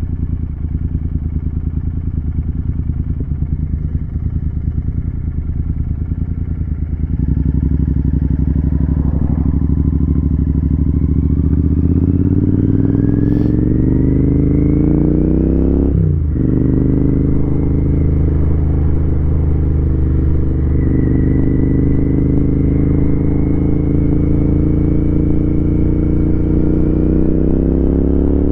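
Royal Enfield Continental GT 650's parallel-twin engine and exhaust, cruising steadily, then opening up about seven seconds in and rising in pitch as the bike accelerates. A brief drop about sixteen seconds in marks an upshift, and the engine climbs in pitch again through the next gear.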